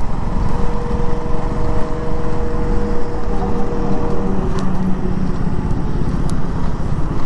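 Motorcycle riding along a highway: wind rushing over the microphone over the engine's running rumble. A steady whine sits on top of it from about half a second to about four seconds in.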